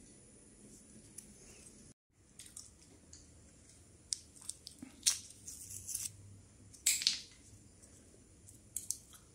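Fingers cracking and peeling the hard black shell of a horned chestnut (water caltrop): a scattered series of short crackles and snaps, with two louder cracks in the middle.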